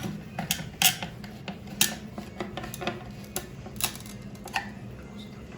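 Screwdriver tightening screws in a toilet cistern's flush cover plate: irregular sharp clicks and taps of metal on screw heads and plastic, loudest about one and two seconds in.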